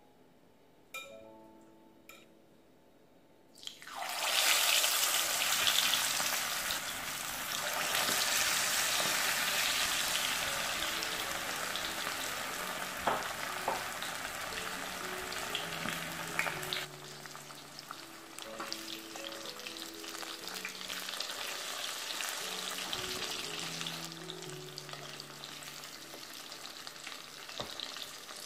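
Marinated chicken drumsticks deep-frying in hot oil: a loud sizzle starts suddenly about four seconds in as the pieces go into the oil. It then eases off and drops noticeably about two-thirds of the way through.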